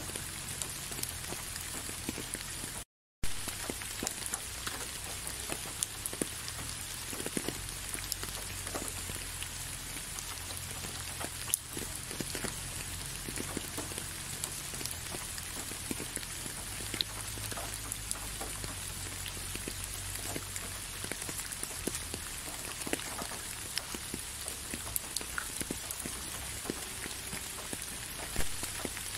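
Steady rain, with many separate drops heard as small sharp ticks and a few louder single hits. The sound cuts out completely for a fraction of a second about three seconds in.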